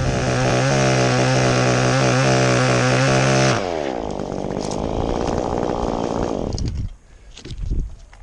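Two-stroke chainsaw, a Stihl, running at high speed for about three and a half seconds, then dropping back to a lower speed as the throttle is let off, and stopping near seven seconds in. A few short knocks follow.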